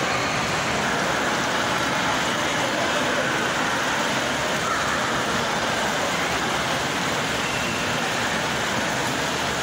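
Steady, even rushing background noise with no distinct events: the ambience of a busy indoor space.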